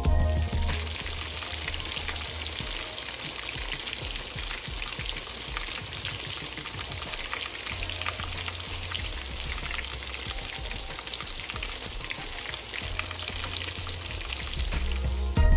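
Oil sizzling and crackling steadily around batter-coated fish pieces frying in a skillet, a dense patter of small pops. Background music cuts away within the first second and returns right at the end.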